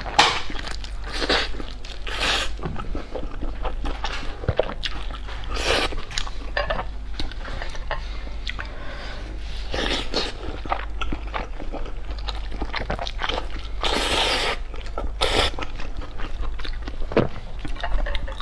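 Close-miked eating: bites into a chili-sauce-dipped vegetable sausage and wet chewing, with louder mouth noises every few seconds, over a steady low hum.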